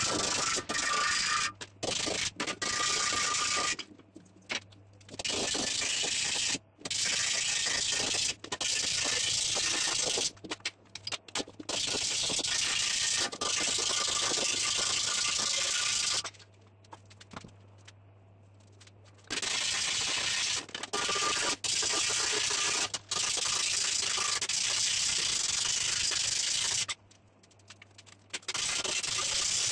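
A ball-peen hammer beating a steel breastplate against an anvil to smooth it. The rapid blows run together into a continuous metallic clatter that stops for one to three seconds several times.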